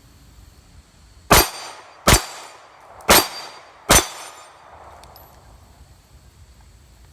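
Four pistol shots, about three-quarters of a second apart, each with a clanging, ringing tail.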